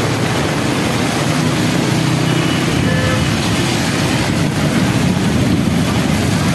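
Heavy rain pouring down, with motorbikes and auto-rickshaws passing on the wet road; the sound is a steady, loud wash of rain and traffic noise.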